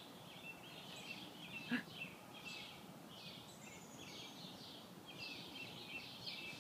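Wild birds chirping and singing, many short high calls overlapping throughout, with a single brief louder sound about two seconds in.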